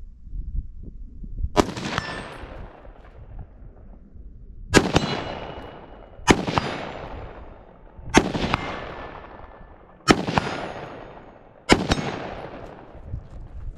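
Six single rifle shots fired at an uneven pace, one every one and a half to two seconds, each followed by a long rolling echo that dies away.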